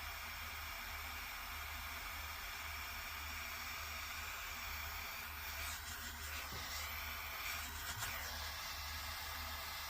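Steady hiss, with a few brief faint rustles between about five and eight seconds in.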